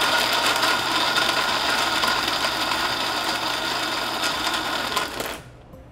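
Countertop blender running at full speed, crushing ice for a frozen mango margarita, then switching off suddenly near the end.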